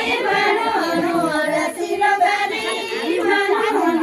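A group of women singing a Garhwali folk song together, many voices on one sustained melody.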